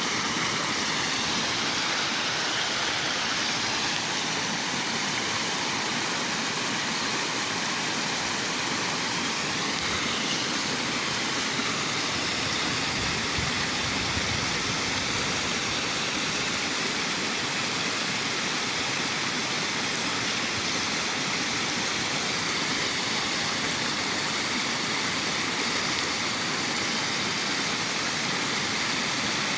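Waterfall rushing: a steady, unbroken noise of falling water that holds at one level throughout.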